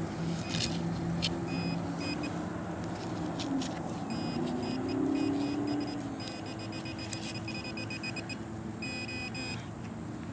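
Handheld metal-detecting pinpointer beeping in quick repeated bursts of a high tone as it is probed around a dug hole, signalling a buried metal target, here an aluminium pull tab. A distant engine drone runs underneath, swelling about halfway through.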